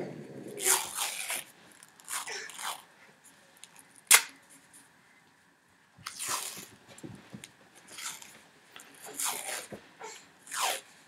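Athletic tape being pulled off the roll and wrapped around a wrist: about seven short, rasping bursts a second or two apart, with one sharp crack about four seconds in.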